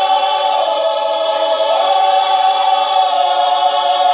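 Gospel choir holding a long, loud chord, many voices sustaining it together.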